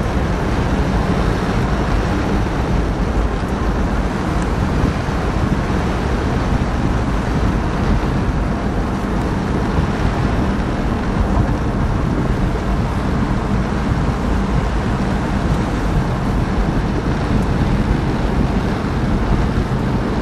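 Inside the cabin of a 1959 Edsel Corsair convertible cruising along with its top up: steady engine drone mixed with road and wind noise.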